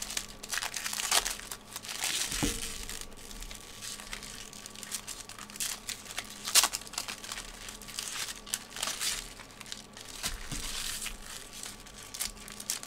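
Foil wrappers of Mosaic Serie A trading-card packs crinkling and tearing as the packs are handled and ripped open by hand. It comes as irregular crackles, with one sharper, louder crinkle about six and a half seconds in.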